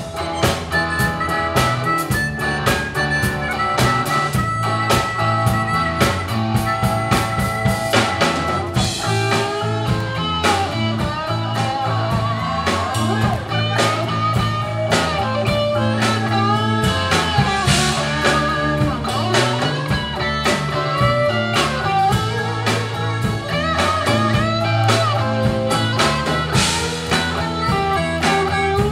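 Live blues-rock band playing: harmonica leading over electric guitar, bass and drum kit, with notes bending in pitch.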